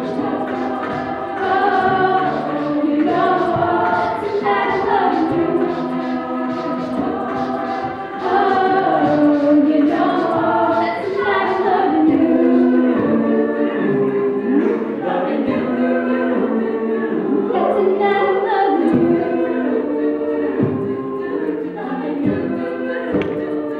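A cappella group of men's and women's voices singing, a woman's lead over close backing harmonies, with a beatboxer keeping the beat.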